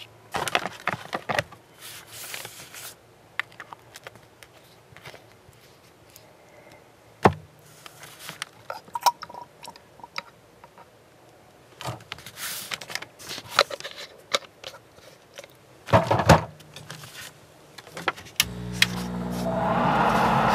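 Small clicks, taps and knocks of a glass paint bottle, a paper cup and tools being handled on a work table. Near the end a small air compressor starts with a steady hum, and the hiss of the airbrush spraying paint builds up over it as the paint flow is tested.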